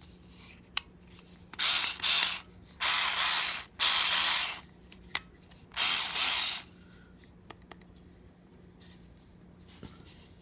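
Five short, loud rasping bursts, about half a second to a second each, with a few sharp clicks between them: mechanical noise from handling a small tool.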